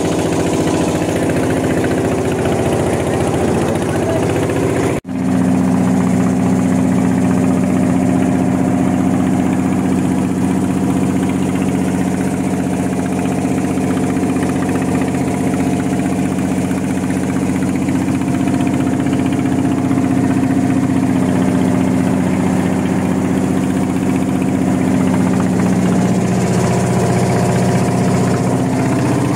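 Fishing boat's engine running steadily underway, a loud even drone. It breaks off for an instant about five seconds in and then carries on unchanged.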